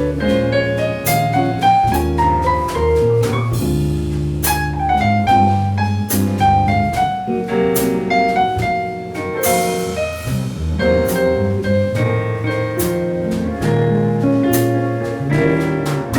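Small jazz band playing an instrumental solo chorus, with a piano melody that runs up and down over bass and a drum kit's cymbal strokes.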